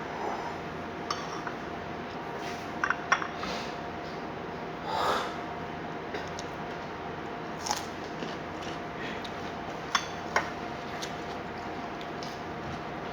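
Scattered sharp clinks and knocks of plates and eating utensils at a meal, a quick cluster of them about three seconds in and single ones later, over a steady low background hum with a faint constant tone.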